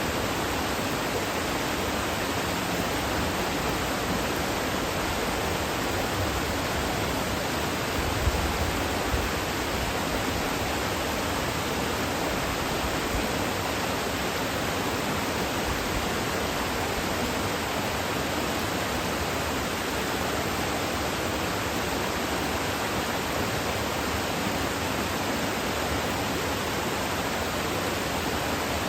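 Waterfall pouring steadily, a constant even rush of falling water, with two brief low bumps about eight seconds in.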